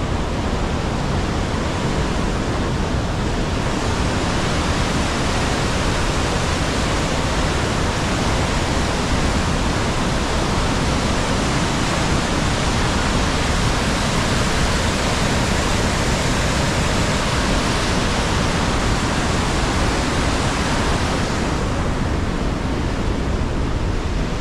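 St. Mary Falls and the whitewater below it rushing, a loud, steady wash of falling water. The hiss is fuller from about four seconds in and thins a few seconds before the end.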